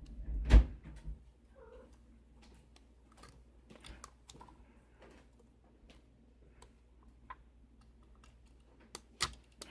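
Small sharp clicks and taps of a Kwikset KIK lock and metal tools being handled and worked, with one louder knock about half a second in and two sharper clicks near the end.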